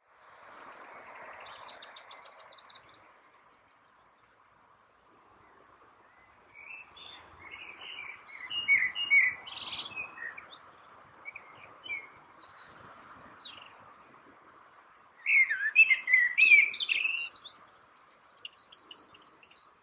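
Songbirds singing: quick phrases of clear chirping notes with some higher trills, loudest about eight seconds in and again about fifteen seconds in, over faint steady background noise.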